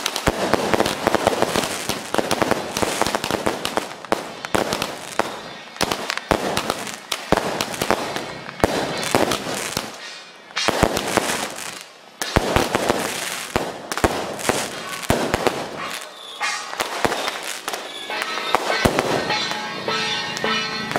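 Strings of firecrackers going off in dense, rapid crackling bursts, with short lulls, as a temple procession passes. Pitched procession music comes in near the end.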